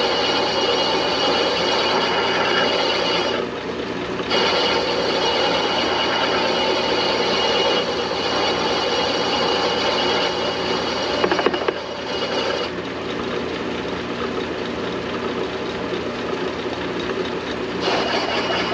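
Metal lathe running while a hand-fed cutting tool takes a light cut of about ten thousandths off a steel brake hub, the tool scraping off small chips. The cut breaks off briefly about three and a half seconds in, and the cutting noise is lighter for several seconds near the end.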